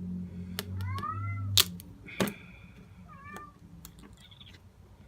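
A house cat meowing twice, a longer meow about a second in and a shorter one a little past three seconds: a cat asking to be let out. A few sharp clicks come in between.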